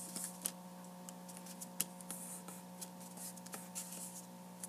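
Faint paper handling: fingers pressing folded, glued paper flat on a table, with scattered light clicks and taps. A steady low hum runs underneath.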